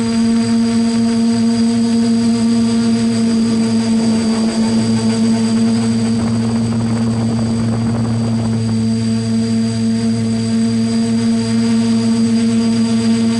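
Steady hum of a hovering multirotor drone's motors and propellers, recorded on board, holding one pitch throughout. A rush of wind noise swells over it from about four to nine seconds in, as the craft tilts.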